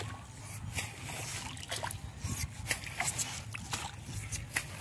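Water and mud splashing and sloshing in a flooded rice paddy: a string of short, irregular splashes over a steady low rumble.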